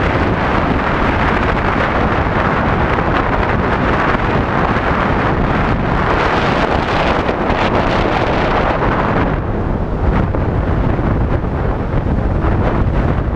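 Loud, steady wind buffeting on the microphone of a motor scooter riding at speed, mixed with road rumble; the upper hiss eases about nine and a half seconds in.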